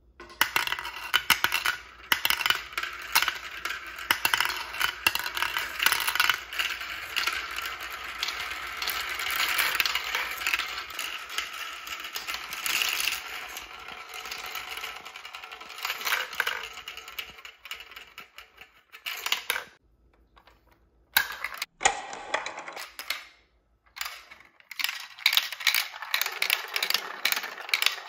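Plastic marbles rolling, clicking and rattling through a VTech Marble Rush run, swirling round its plastic funnels and clattering down the chutes. The sound breaks off twice for a moment about two-thirds of the way through.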